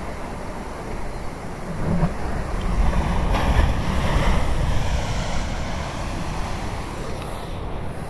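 Ocean surf: waves breaking and washing up a sandy beach, with wind rumbling on the microphone. One wave's wash swells about three seconds in and fades away by about five and a half seconds.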